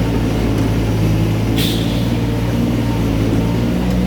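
Diesel engine of a mini excavator or dump truck running steadily under a loading job, with one short hiss about a second and a half in.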